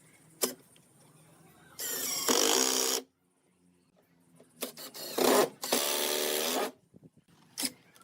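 A handheld power tool runs in two short bursts of about a second each, with a steady motor whine, and a few sharp clicks fall in the quiet gaps between.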